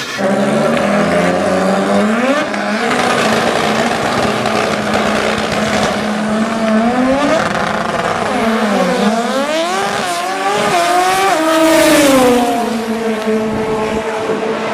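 Drag-racing car engines running hard down the strip, the engine note climbing over the first couple of seconds, holding, then dropping and rising again several times.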